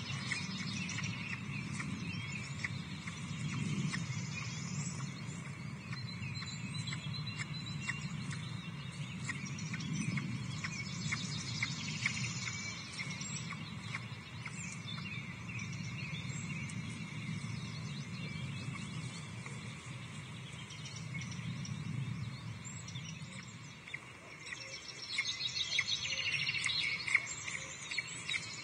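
Outdoor ambience at a treetop nest: many small birds chirping and singing in the background over a low rumble, with a louder flurry of chirps near the end.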